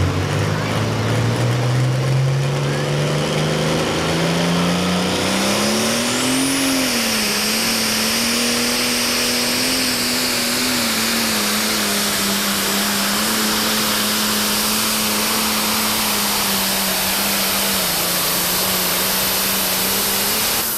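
Pro stock pulling tractor's turbocharged diesel engine under full load on a pull. Its pitch climbs steadily over the first six seconds, then holds level at full throttle, with a high hissing rush above it.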